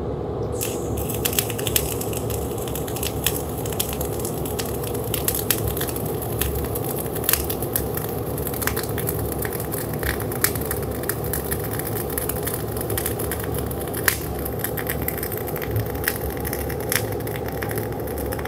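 Gas-shielded flux-core arc welding with Bohler Diamondspark 52 RC wire under 75/25 shielding gas at 22.5 volts and 360 wire feed speed: a steady crackling arc with frequent sharp pops, laying a root pass.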